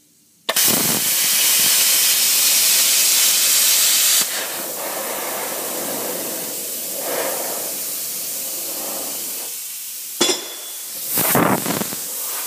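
Hypertherm Powermax 30 plasma cutter firing into aluminium sheet: a loud, steady hiss of the arc and air starts suddenly about half a second in. After about four seconds it drops to a quieter hiss that carries on. There is a sharp click near ten seconds and a short louder burst near the end.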